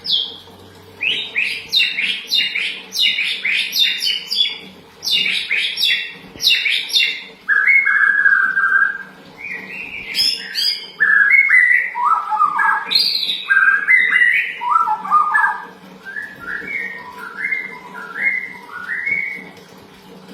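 Pastol songbird singing: loud rapid high chattering notes in quick runs for the first several seconds, then lower slurred and whistled phrases repeated in short bursts. This is a lure song meant to set other birds calling.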